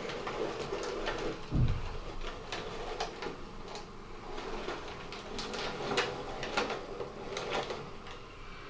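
Hornby Schools class model locomotive crawling slowly over points: its small electric motor hums steadily while the wheels tick and click irregularly over the rail joints and points. A dull low thump about a second and a half in.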